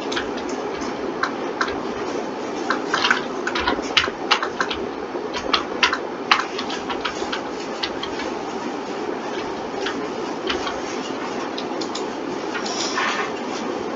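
Irregular clicking of a computer mouse and keyboard keys, densest in the first half, over a steady hum.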